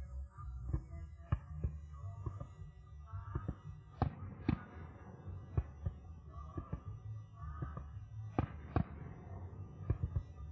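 Fireworks-show music with a throbbing low bass and sharp percussion hits. The strongest hits come in pairs about half a second apart, about four seconds in and again about eight and a half seconds in.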